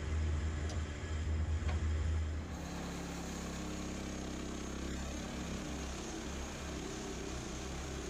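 Woodland Mills HM126 portable bandsaw mill running, its Kohler gas engine holding a steady speed while the band blade cuts through a log. About two and a half seconds in the sound changes abruptly to a slightly quieter, steadier engine tone.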